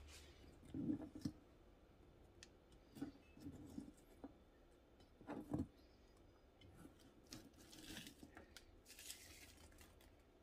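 Faint kitchen handling sounds on a cutting board: a few soft knocks and scrapes about one, three and five and a half seconds in, and a light rustle around eight to nine seconds in.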